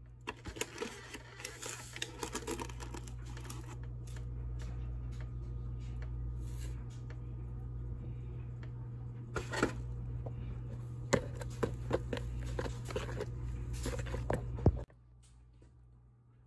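Wire whisk stirring dry cocoa powder and sugar in a plastic bowl, scratching and clicking against the bowl over a steady low hum. Everything cuts off abruptly about fifteen seconds in.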